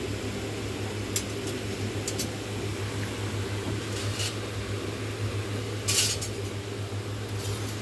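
Thin stamped-metal grill ornament discs clinking against each other as they are handled and lifted from a stack: a few light metal clinks, the loudest about six seconds in, over a steady low hum.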